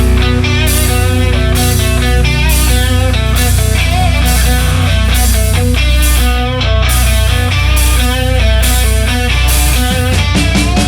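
Loud hard rock music: an electric guitar playing a melodic lead line over steady bass and drums, with no singing.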